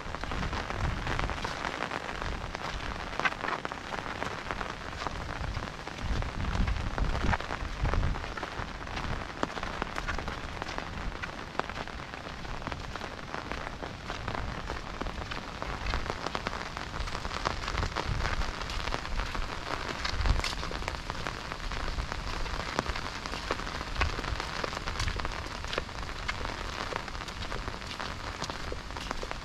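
Steady rain falling on the path and vegetation: a continuous hiss with scattered sharper drop ticks, one louder tick about twenty seconds in.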